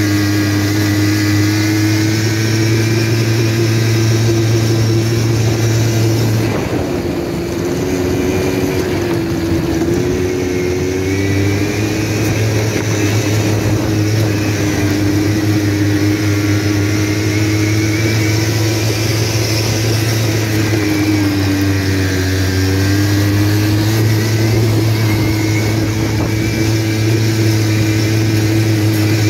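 A vehicle engine running under way, a steady drone whose pitch dips and rises twice as the revs change.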